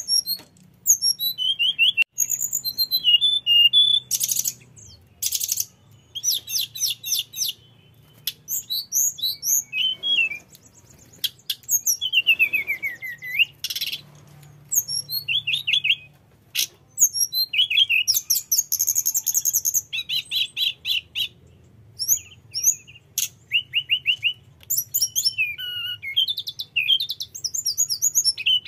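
A caged male hill blue flycatcher (tledekan gunung) singing in full. Phrase follows phrase with only short gaps: clear high whistles that glide up and down, mixed with fast rolling trills and chatter.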